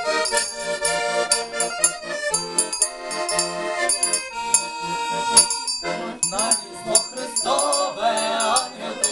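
Button accordion playing a carol tune with held chords. About six seconds in, a group of voices starts singing along with it.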